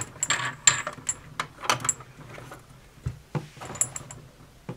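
Handling noise: a run of irregular small clicks, knocks and rustles as the camera and small toy objects are moved about, with one heavier knock about three seconds in.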